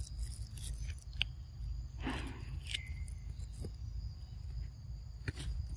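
Steady high-pitched insect drone over a low background rumble, with a few short clicks and a brief rustle about two seconds in.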